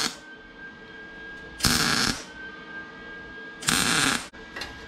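Wire-feed welder arc crackling in short tack-weld bursts joining cut steel pieces: one burst ending just as the sound begins, then two more of about half a second each, roughly two seconds apart.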